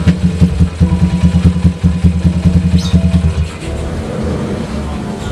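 Classic Honda motorcycle engine running through a freshly fitted aftermarket racing exhaust, loud and pulsing as the throttle is worked, then dropping to a quieter, steady idle about three and a half seconds in.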